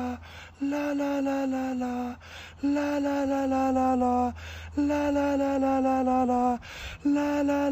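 A man singing held vowels, four phrases in a row, each one stepping down through a minor third in small even pitch steps, with more steps in each pass. Quick breaths come between the phrases.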